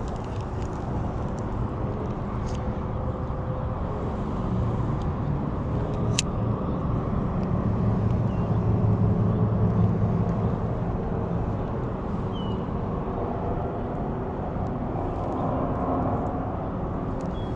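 Road traffic running steadily, growing louder as a vehicle passes around the middle and then fading.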